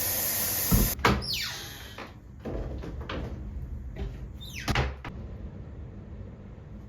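A steady hiss cuts off about a second in. It is followed by a few knocks and two short scraping sweeps, typical of a door or cupboard being opened and closed.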